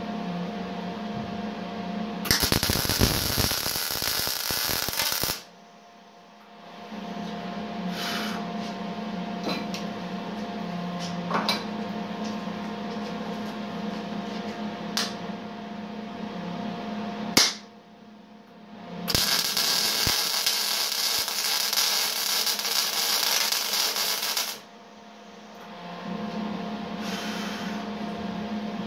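Eastwood MIG 175 welder's arc crackling steadily while a bead is laid, in two runs of about three and five seconds: the first a couple of seconds in, the second from about nineteen seconds in. Between the runs there is a steady hum and a few sharp clicks.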